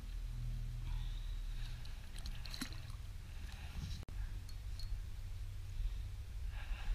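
Small clicks and light wet splashing from pliers and a rainbow trout being unhooked over the side of an inflatable boat, over a steady low rumble. The sound drops out for an instant about four seconds in.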